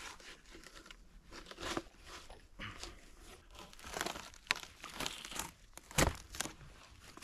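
Irregular rustling and crunching, broken by several sharp knocks, the loudest about six seconds in.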